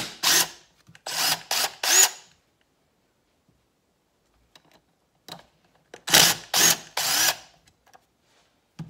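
Cordless driver spinning in short bursts as it backs out the bolts of a 2007 Suzuki RM250 cylinder's exhaust power-valve cover: several quick bursts in the first two seconds, then three more about six seconds in, each rising in pitch as the motor spins up.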